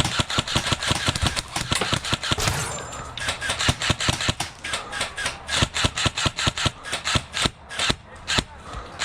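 Airsoft guns firing in a firefight: many sharp shots, singly and in quick bursts, overlapping throughout.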